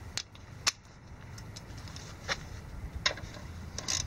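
A few sharp, irregular clicks and taps as the oil drain plug is threaded back into a Yamaha F250 four-stroke outboard by hand, over a steady low hum.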